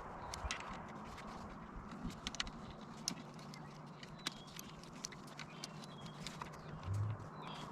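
Scattered light clicks and taps over a faint steady low hum, with a couple of short dull thumps near the end.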